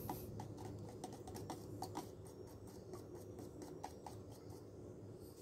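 A small metal spoon clicking against the inside of a thin plastic cup as it stirs pH calibration buffer powder into water until it dissolves. The clicks are faint and irregular, a few a second.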